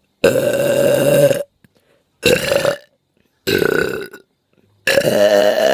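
A person burping loudly four times in a row: a long burp, two short ones, then another long one near the end.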